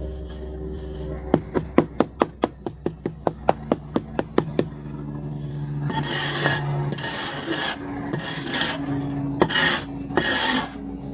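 A quick run of sharp taps, about five a second, then from about halfway several rasping scrapes, typical of charcoal being shaped by scraping.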